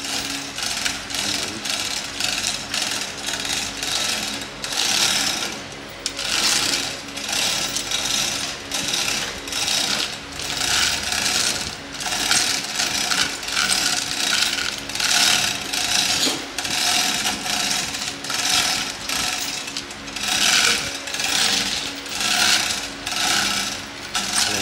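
Hand tools at work on a car engine being taken apart: a long run of short rattling, clicking bursts, about one a second in the second half, like a ratchet wrench turning out bolts.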